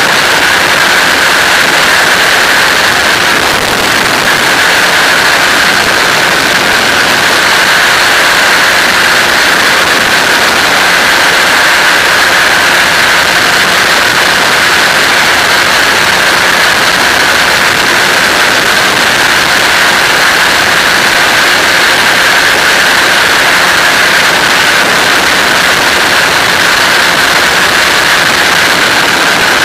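Flex-wing microlight trike in cruising flight: the engine drones steadily under a loud, even rush of wind over the microphone.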